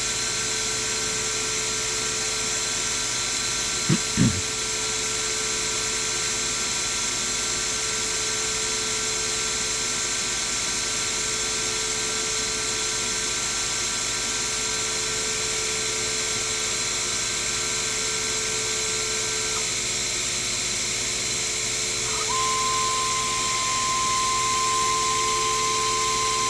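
Sherline mill running with a steady high motor whine while a small end mill works a brass bar. Two short sounds that drop in pitch come about four seconds in, and about 22 seconds in a new steady higher tone joins and the sound gets a little louder.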